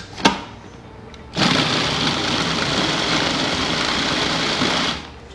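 Countertop food processor chopping onion and peppers: a sharp click as the lid is set, then about a second later the motor runs steadily for about three and a half seconds and stops abruptly. It is a short run for a coarse chop, not a purée.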